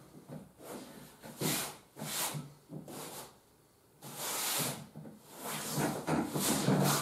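Fabric and frame of a Hobbi Outdoor folding camping cot rustling in several short bursts as a man shifts his weight and presses on the deck.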